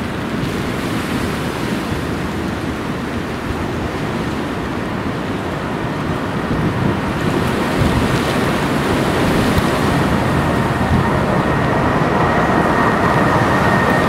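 Four-engined Boeing 747-400 jet, Rolls-Royce RB211 engines, roaring as it climbs away overhead under go-around thrust, the roar slowly growing louder as it nears. In the last couple of seconds a high, steady engine whine comes up over the roar.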